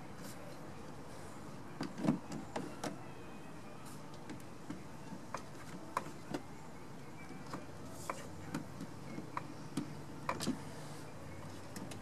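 Hand screwdriver turning out the screws that hold a car door latch assembly: scattered light clicks and taps of the tool and the metal parts, with a cluster of louder knocks about two seconds in and another near ten seconds.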